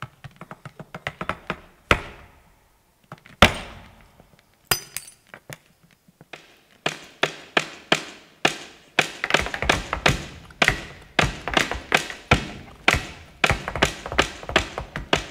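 Flamenco footwork: a dancer's shoes striking the stage floor. Scattered single stamps with a pause near the start, then a fast, dense run of strikes from about seven seconds in.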